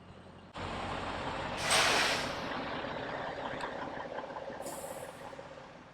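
Semi-trucks idling with a steady rumble, and a loud hiss of air from a truck's air brakes about two seconds in.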